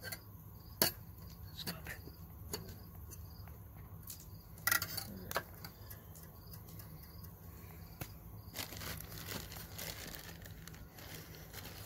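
Paper bag of brown sugar crinkling and rustling as a steel measuring cup scoops from it, with scattered light clicks and taps of the cup.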